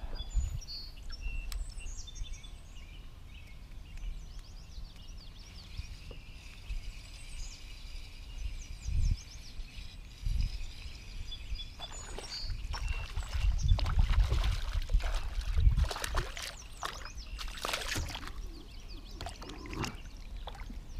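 Birds chirping repeatedly over a low wind rumble, then from about halfway in, irregular splashing and knocking at the side of a kayak as a crappie is brought in by hand.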